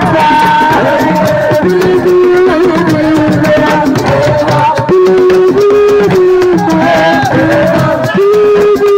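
Live Senegalese assiko band music: a held, stepping melody line over hand drums and rattling shakers, played loud.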